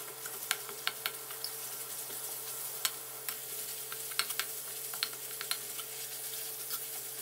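Minced pork with chilli and garlic sizzling in hot oil in a wok while a metal ladle stirs it, with irregular clicks and scrapes of the ladle against the wok.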